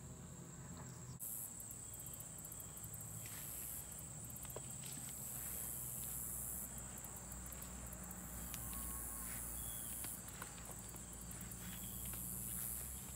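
A chorus of insects chirring in a high-pitched wash that swells and fades every second or two, over a steady high whine. It starts about a second in, and a few faint ticks and steps sound through it.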